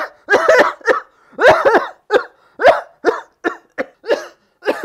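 A person coughing, a rapid irregular series of about ten short voiced coughs.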